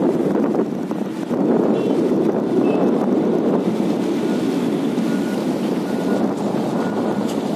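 Steady wind buffeting the microphone over a low rumbling noise of travel, with faint short high beeps repeating in the second half.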